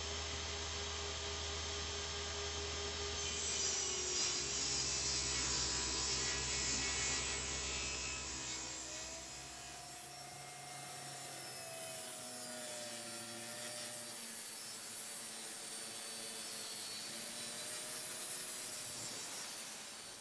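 Table saw running and cutting plywood sheets: a steady motor hum under the hiss of the blade going through the wood. About ten seconds in the low hum drops away as another stretch of cutting follows, with a wavering tone.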